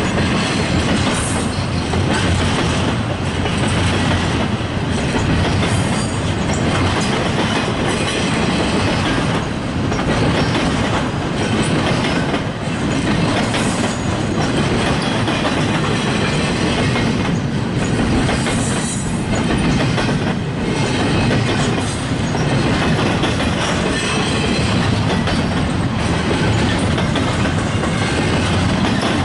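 Freight train cars rolling past, a steady rumble with wheel clatter over the rail joints.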